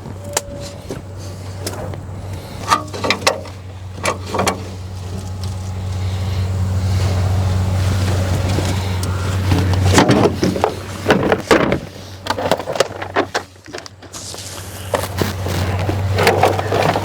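An engine running steadily in a low hum that grows louder for several seconds, then drops off about ten seconds in, with metal tools clinking and clanking over it.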